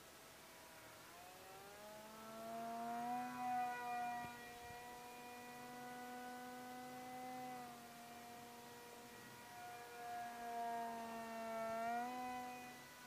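Motor of an F-22 Raptor-style RC model airplane whining in flight. The whine climbs in pitch over the first few seconds, holds steady, sags a little about two-thirds of the way through, and rises again near the end, loudest at each climb.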